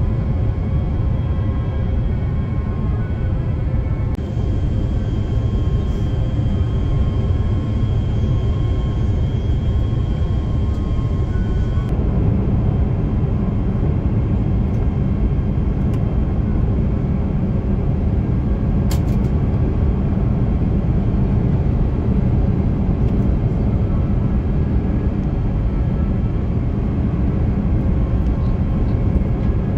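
Airbus A350-900 cabin noise on final approach: the steady rumble of its Rolls-Royce Trent XWB engines and rushing airflow, heard from inside the cabin. Faint steady whining tones above it fade out about twelve seconds in, as the low rumble grows slightly.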